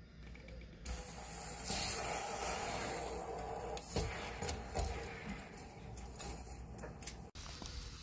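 Water rushing out through a water heater's brass drain valve, opened with a screwdriver, into a garden hose as the tank is flushed: a loud hiss starting about a second in, with a couple of sharp knocks in the middle. The sound cuts off suddenly near the end.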